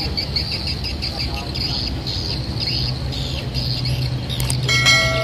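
Steady low drone of a passenger speedboat's outboard motors running across the river, under high chirps repeating about four times a second. Near the end a brief high tone with overtones sounds over it.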